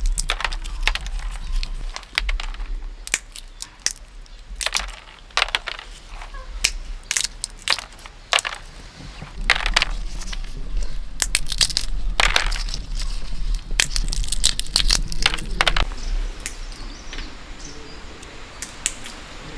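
Irregular crunching and crackling, with sharp cracks coming in quick clusters, as of something dry being crushed or broken.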